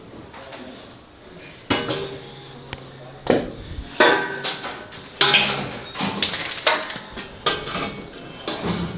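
Weight plates on a barbell loaded for T-bar rows clanking through a set of reps: a series of sharp metallic clanks about once a second, starting a couple of seconds in, some with a short ring.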